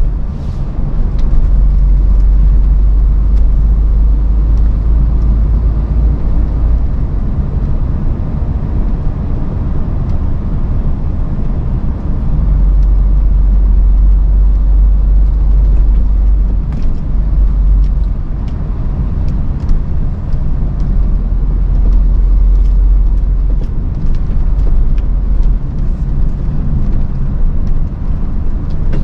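Lorry's diesel engine and running noise heard inside the cab at low speed, a steady deep rumble whose lowest part swells and eases several times.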